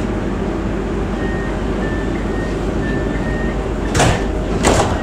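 Tram doors closing at a stop: a repeating high warning beep, then the door leaves shut with two sharp thuds near the end, over the steady hum of the standing tram.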